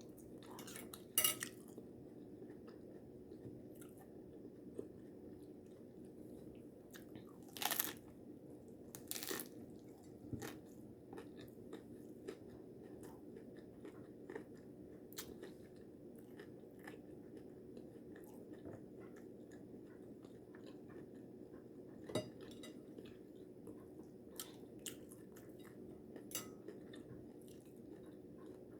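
Close-up chewing and crunching of taco food, with scattered short clicks from dishes or cutlery on a plate. A steady low hum runs underneath.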